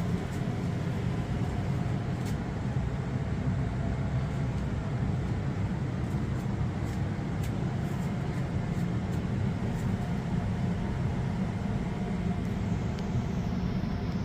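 A steady low rumble that holds even throughout, with no distinct events.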